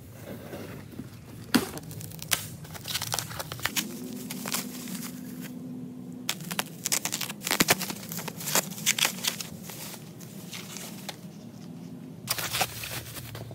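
Crumpled kraft packing paper and plastic wrap rustling, crinkling and tearing as a cardboard box is unpacked, in irregular sharp bursts.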